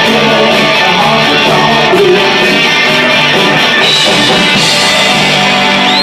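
Live band playing loud guitar-led rock music, with sustained chords filling the sound.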